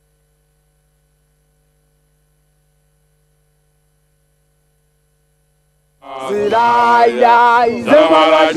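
Near silence with a faint steady hum for about six seconds. Then a singer's voice starts abruptly in Sesotho praise singing, with long held notes that slide in pitch.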